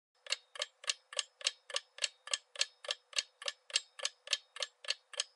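Clock-ticking sound effect, even ticks at about three a second, counting down the time to answer a quiz question.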